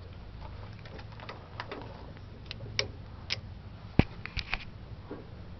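Scattered metal clicks and knocks as the adjustable parts of a 1928 Singer 29K51 cast-iron leather-sewing machine are moved by hand, with one sharp knock about four seconds in.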